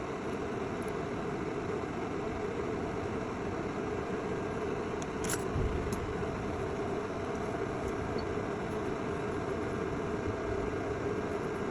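Steady whir of a fan running, with a faint tick about five seconds in and another just after.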